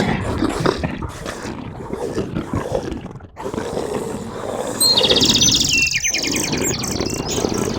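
Birds calling over a rough, noisy background, with a rapid trill that steps down in pitch about five seconds in, followed by a few short chirps.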